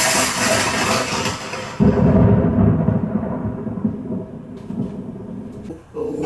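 Thunder sound effect played through computer speakers: a sudden sharp crack, then about two seconds in a heavy low rumble that slowly dies away. Right at the end a small dog starts to howl in reply.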